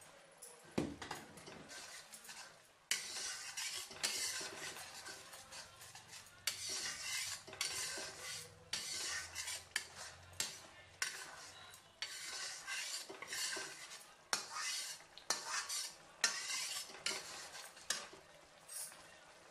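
A perforated steel slotted spoon stirring and scraping a thick masala mixture around a metal pan, in repeated strokes about one or two a second, with sharp clinks of the spoon against the pan.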